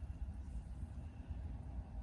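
Low, uneven rumble with no clear tones or distinct sounds.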